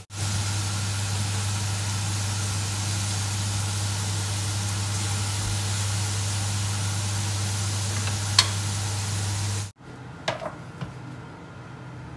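Chopped strawberries and stone fruit sizzling in a hot, caramelising sugar in a frying pan as a spoon stirs them, over a steady low hum; the spoon clinks once near the end. The sizzling cuts off suddenly about ten seconds in, leaving a quieter room with a few light clicks.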